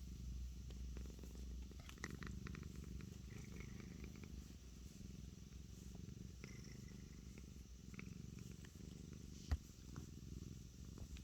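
A domestic cat purring steadily, with a single sharp knock about three-quarters of the way through.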